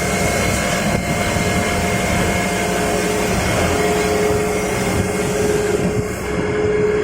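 Automatic pistachio butter grinder running: a steady mechanical drone with a constant high whine and a mid-pitched tone that grows stronger about halfway through.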